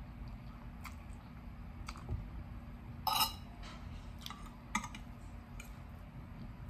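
Someone eating rice noodles with a metal fork and spoon: slurping and chewing, with scattered light clinks of the cutlery against the plate, the loudest about three seconds in.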